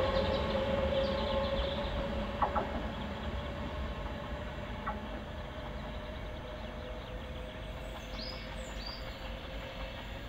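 Virgin Trains Class 390 Pendolino electric train moving away along the track, its rumble fading steadily, with a steady whine and a couple of sharp clicks. Birds chirp briefly near the end.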